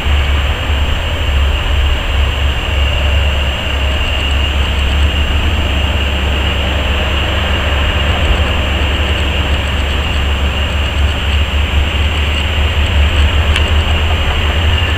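Heavy diesel engines of a Caterpillar 385 hydraulic excavator and the Caterpillar dump truck it is loading, running steadily with a deep, even rumble as the excavator digs and loads.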